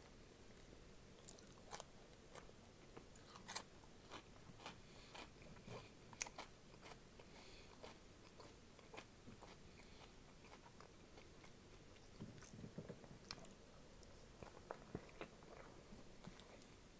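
Faint close-miked chewing with scattered sharp crunches and wet mouth clicks: a person eating a sausage dog and Flamin' Hot Cheetos.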